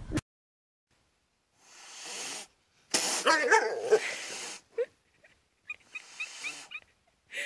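A cat yowling and growling with something held in its mouth, in strained calls that rise and fall in pitch, loudest about three seconds in, with weaker calls near the end.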